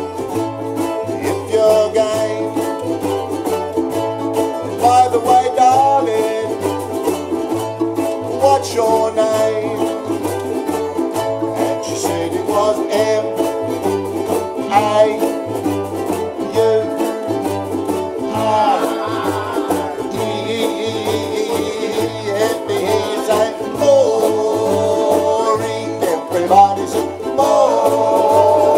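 A group of ukuleles strumming together in a swinging rhythm over a steady, repeating bass line, an instrumental stretch with no singing.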